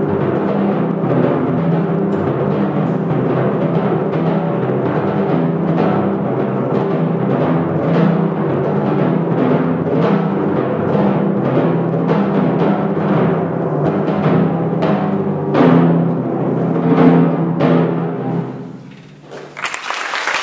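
Two sets of copper kettle timpani played in duet: a march of rhythmic strokes and rolls on tuned low drums, loudest about seventeen seconds in. The drums then die away, and applause starts just before the end.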